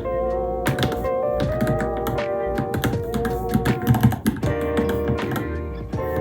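Keys of a Varmilo Minilo mechanical keyboard clacking in irregular quick runs of typing, over background music with held, wavering notes.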